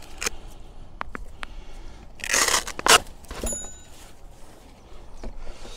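A folded fabric-cased 120 W solar panel being handled and opened. Scattered clicks and taps, a burst of scraping rustle about two seconds in, then a sharp knock, followed by quieter handling noise.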